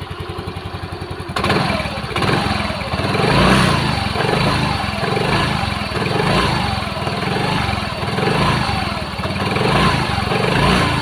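Yamaha Mio M3's 125 cc single-cylinder scooter engine idling evenly, then blipped repeatedly from about a second and a half in, its revs rising and falling. It runs quiet and smooth, with the earlier rattle at idle gone now that the CVT parts are refitted.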